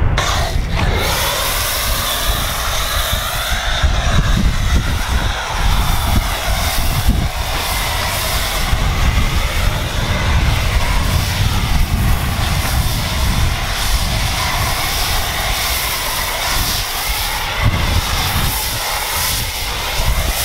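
Pressure washer rinsing car-wash foam off a car: a steady hiss of spray over a low motor rumble, with a faint wavering whine.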